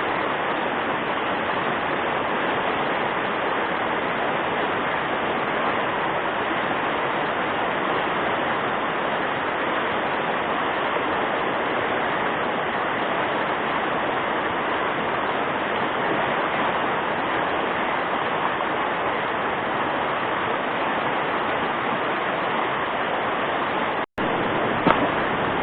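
Fast-flowing river current rushing steadily, a constant even rush of water. It cuts out for an instant near the end, followed by a faint click.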